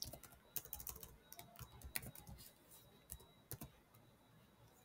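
Faint typing on a computer keyboard: irregular key clicks that stop a little before the end.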